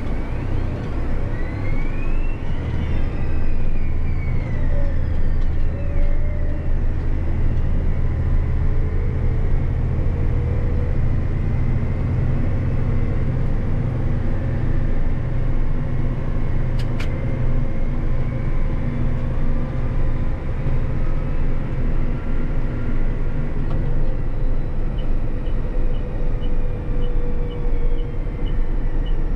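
Tractor engine running under load, heard from inside the cab while driving along the road. It rises in pitch over the first few seconds as the tractor gathers speed, then settles into a steady drone. A light ticking, about two a second, starts near the end.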